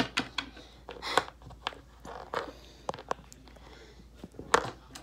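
Scattered light clicks, taps and rustles of small plastic toy figures being handled on a wooden floor close to the microphone, with a sharper knock near the end.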